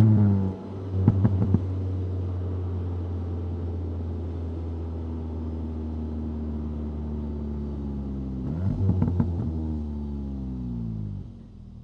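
2025 VW Golf GTI 8.5's 2.0-litre turbocharged four-cylinder engine: the revs fall away at the start, with a short run of sharp pops about a second in, then a steady engine note easing down. About nine seconds in comes another brief flurry of pops as the revs swing, and the engine note drops off sharply near the end.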